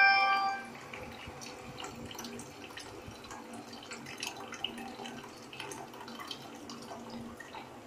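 Water trickling and dripping from the inlet into the plastic storage tank of an RO water purifier, an irregular patter of drops over a steady trickle. A chiming electronic melody dies away in the first moment.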